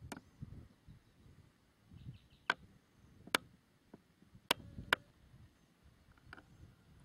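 Wind rumbling unevenly on the camera's microphone, with several sharp clicks of the camera being handled.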